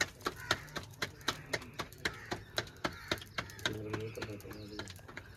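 Rapid, rhythmic knocking, about four sharp strokes a second, that stops near the end. A person's voice is heard briefly about four seconds in, over a steady low hum.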